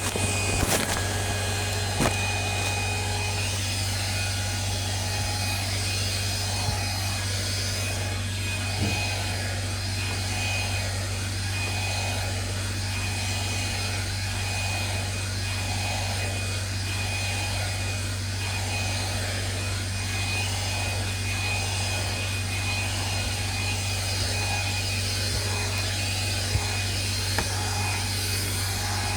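A 2-in-1 hair dryer running steadily: a constant motor hum and blowing air with a thin high whine, faintly pulsing about once a second, with a few light clicks.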